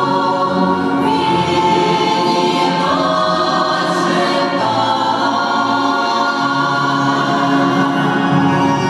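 Choir singing a slow, lyrical song in long held notes: music for a Russian khorovod round dance.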